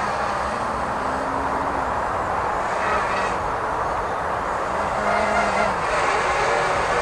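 Small racing quadcopter's motors and propellers buzzing in flight, their pitch sliding up and down with the throttle over a steady rushing noise, growing a little louder after about five seconds as it comes closer.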